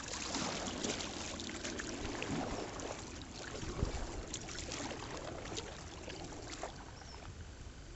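Lower Salt River water rushing and splashing around a kayak as it nears a rapid. Sharp splashes come here and there, with a low thump about four seconds in.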